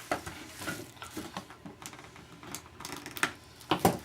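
Hands handling a trading-card box and its foil packs: irregular light clicks, taps and rustling of cardboard and wrappers, with a few sharper knocks near the end.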